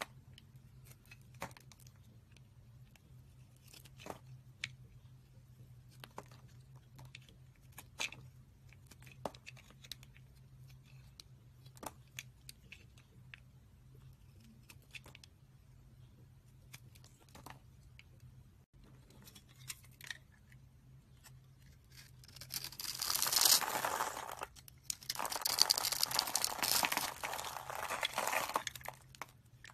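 A thin blade cutting into dry bar soap: scattered single slicing clicks at first, then, over the last third, two long stretches of loud, dense crunching as scored soap cubes break loose and crumble.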